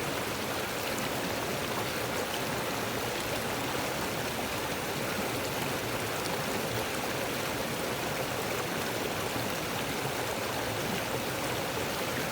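Small mountain river running steadily past, an even rush of flowing water.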